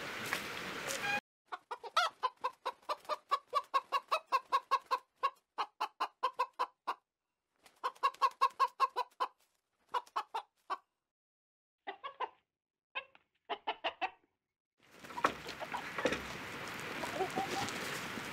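Chickens clucking in quick runs of short clucks, broken by a few short pauses. About fifteen seconds in, the clucking stops and steady background noise returns.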